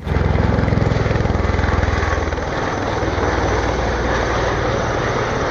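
Helicopter rotor chopping rapidly over steady engine noise. It starts abruptly and is loudest in its first couple of seconds.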